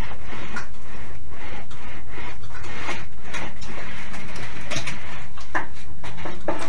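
Hand roller of a homemade roller sheet-metal bender run along the edge of a long steel sheet as it bends up a flange: a steady scraping, rolling noise with irregular clicks and knocks from the sheet metal, a couple of sharper knocks near the end.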